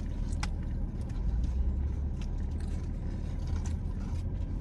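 Low steady rumble of a car heard from inside the cabin, with a few scattered light clicks.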